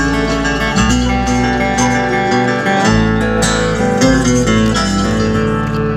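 Live bluegrass band playing an instrumental passage without vocals: acoustic guitar picking over changing bass notes.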